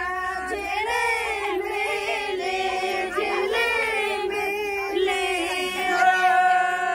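Women singing a song together in unison, drawing out long, held notes, a little louder towards the end.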